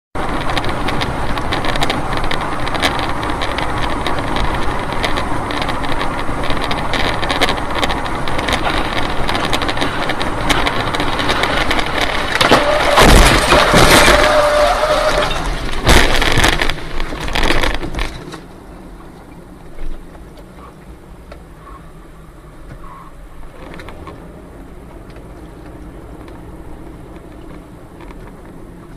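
Loud road and wind noise in a moving car's cabin, swelling into a crashing roar with several heavy impacts between about twelve and eighteen seconds in as a crashing airliner breaks up and its debris flies across the road. The sound then drops to much quieter road noise.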